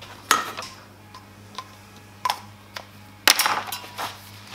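Scattered light clicks and taps of small marking tools being handled and set down on a wooden workbench beside a stainless steel tube, with a quicker flurry of taps a bit past three seconds in. A faint steady hum sits underneath.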